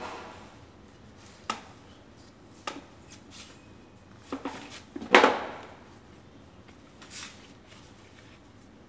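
Suzuki TL1000R front fork tube knocking and clinking against the bench and pan as it is handled and wiped down with a rag: a handful of separate knocks, the loudest a ringing metal clank about five seconds in, and a soft rag rub near the end.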